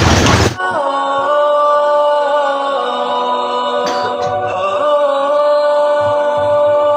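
Background vocal music: unaccompanied singing or chanting with long held notes. A loud rushing noise cuts off abruptly about half a second in, just as the music takes over.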